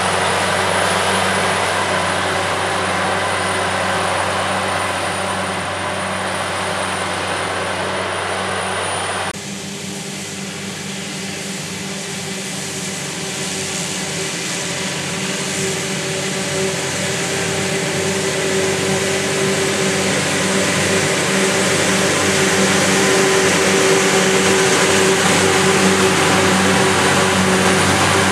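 Self-propelled forage harvester under load, its engine and chopping drum running with a steady drone while it cuts a standing cereal crop for whole-crop silage. The sound changes abruptly about nine seconds in, then grows steadily louder as a Krone BiG X harvester comes closer through the crop.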